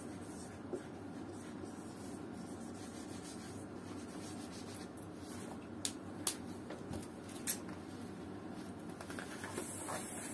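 Marker pens writing on paper and on a small whiteboard, soft rubbing strokes with a few sharp clicks about six to seven and a half seconds in, over a steady low hum.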